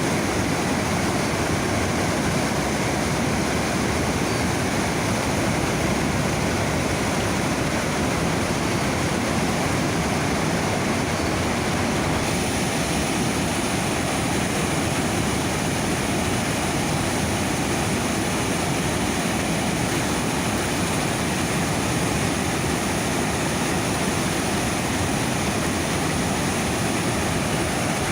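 Niagara River rapids rushing just above the falls: a steady, dense wash of fast-moving water with no break or change.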